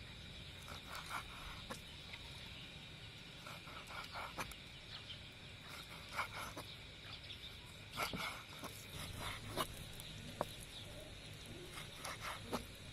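Large kitchen knife cutting raw chicken breast into chunks on a wooden chopping board: irregular knocks of the blade against the board. A steady high-pitched whine runs behind.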